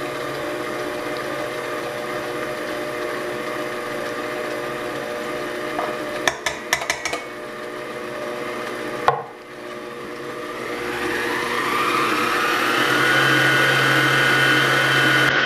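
Farberware stand mixer motor running steadily as its beater turns flour in a steel bowl, with a few light clicks in the middle. A knock comes about nine seconds in, then the motor climbs to a higher, steady whine as it speeds up mixing the dough.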